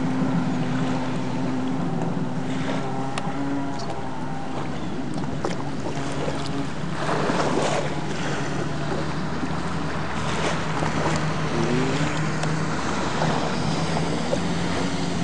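Yamaha Wave Blaster jet ski's two-stroke engine running steadily, with a burst of water spray about seven seconds in and the engine pitch briefly sliding up and down near twelve seconds.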